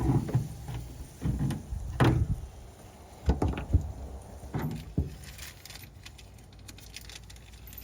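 A flathead screwdriver prying rubber gaskets out of holes in a pickup's bed wall: a string of short knocks and scrapes, about seven in the first five seconds, then quieter handling.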